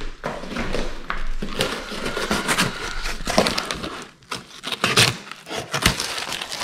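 A knife slicing packing tape on a cardboard shipping box and the box's flaps being pulled open: irregular scraping, tearing and crinkling, with a couple of sharper knocks near the end.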